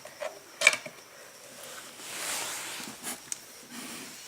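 A few sharp clicks of hands handling an opened laptop: one just under a second in and two more about three seconds in. A soft hiss swells and fades between them.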